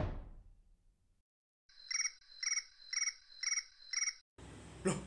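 Five evenly spaced cricket chirps, about two a second, starting and stopping abruptly out of dead silence: a cricket sound effect laid in during editing.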